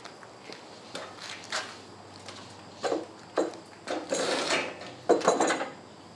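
Scattered knocks and clunks with a short rattling scrape from a pulley hoist and its lifting straps as a heavy engine is lowered by hand. The sharpest knocks come a little after five seconds in.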